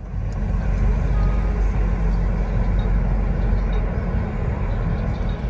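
Car driving along a road, heard from inside the cabin: a steady deep rumble of road and engine noise.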